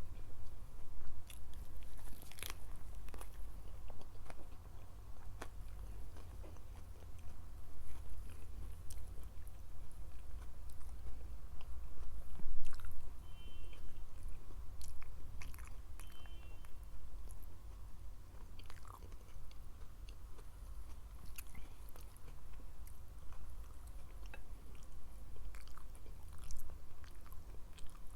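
A person chewing and biting food close to the microphone, with irregular sharp crunches throughout.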